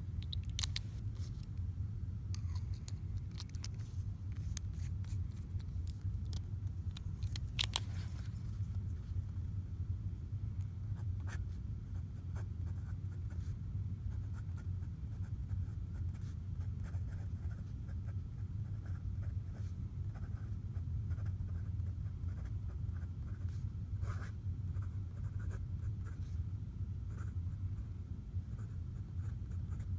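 Pilot Vanishing Point fountain pen nib scratching faintly and unevenly on lined paper as words are written. Before that come a few clicks of the pen being handled and put together, the loudest a sharp click about eight seconds in.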